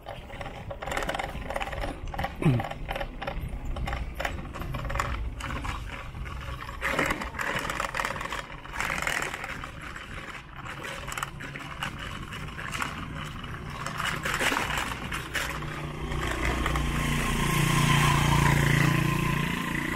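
Outdoor street noise with scattered knocks and rustles, and a louder engine rumble that builds near the end.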